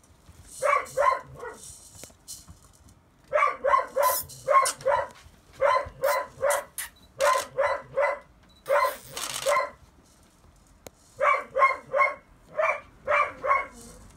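Rough collie puppies, about six and a half weeks old, barking in high-pitched yaps that come in quick runs of three to five, with short pauses between the runs.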